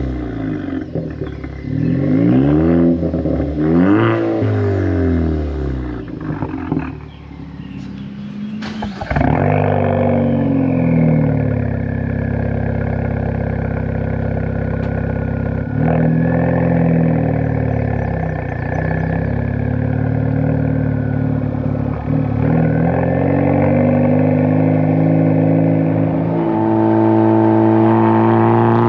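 Ford Focus ST's turbocharged 2.0-litre four-cylinder sounding through a Hooker Blackheart 3-inch stainless catback exhaust: revved twice at standstill, pitch rising and falling each time. After a break it runs steadily under way, climbing in pitch as it accelerates near the end.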